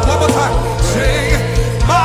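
Live gospel praise music: a band with bass and drums plays a steady beat under sustained singing.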